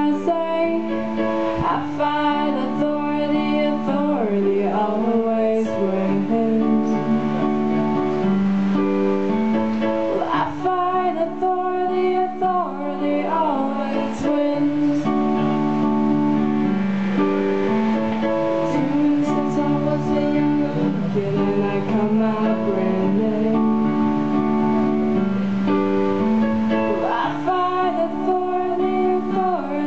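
Small live band playing a song: strummed acoustic guitar, electric guitar and keyboard under sung vocals.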